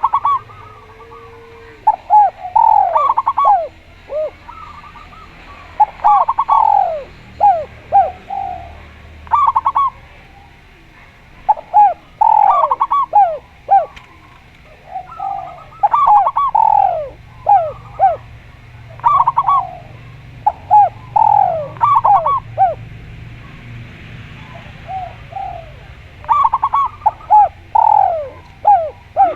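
Doves cooing in repeated phrases of short, quickly falling notes, a burst every few seconds with brief pauses between.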